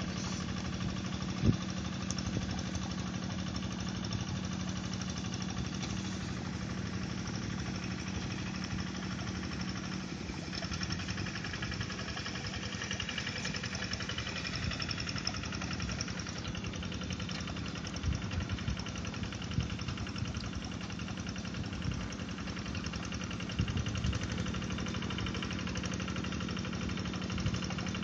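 Two-wheel hand tractor's single-cylinder diesel engine running steadily while it plows a flooded rice paddy. There is one sharp knock about a second and a half in.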